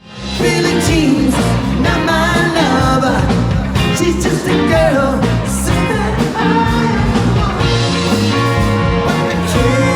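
Rock music with a singing voice and guitar, coming in abruptly just after a brief silence.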